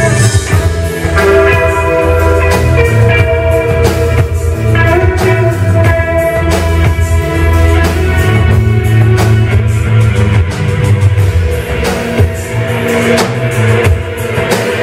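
A live rock band playing: drum kit, electric keyboard and electric guitar over a heavy bass, with held chords and steady drum hits.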